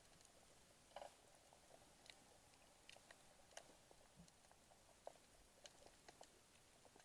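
Faint underwater ambience: a low hiss with scattered, irregular short clicks and crackles, about one or two a second.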